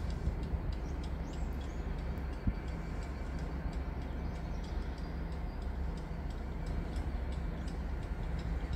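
Steady low rumble of a distant train approaching along the line, with faint scattered clicks over it.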